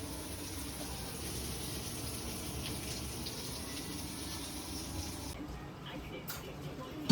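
A steady rush of running water, such as from a tap, which stops abruptly about five seconds in. A sharp clink of dishes or cutlery comes at the very end.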